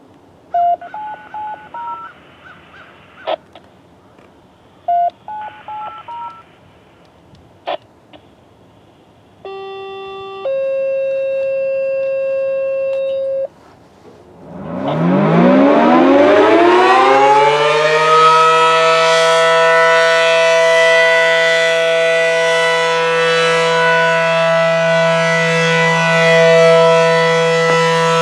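Short stepped electronic beeps in two groups, like telephone keypad tones, then a brief chord and a steady tone of about three seconds. About fifteen seconds in, the ACA Allertor outdoor warning siren winds up, its low chord rising in pitch for a few seconds and then holding steady as a loud sustained alert.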